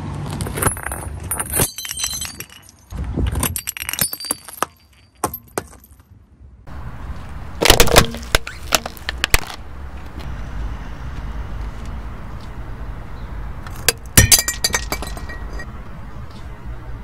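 A car tyre crushing brittle objects on asphalt, beginning with a ceramic piggy bank: three spells of cracking and shattering, the loudest about eight and fourteen seconds in, over the low running of the car's engine.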